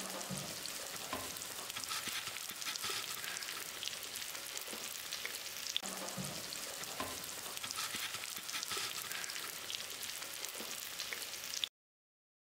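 Masala-coated fish pieces shallow-frying in hot oil on a flat iron griddle: a steady sizzle with many small crackles and pops, cutting off suddenly near the end.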